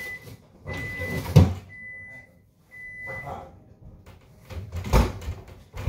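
Kitchen oven timer beeping at the end of its countdown: long, steady high-pitched beeps about once a second, stopping about three seconds in. A heavy thump comes about a second and a half in, and a sharp knock about five seconds in.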